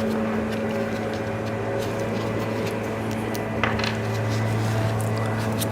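Steady low hum from a running machine in the room, with small metal clicks and taps as bolts and jack parts are handled, one a little louder about two thirds of the way through.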